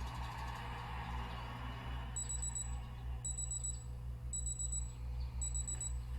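Digital alarm clock beeping: four groups of rapid high-pitched beeps, about one group a second, starting about two seconds in, over a steady low hum.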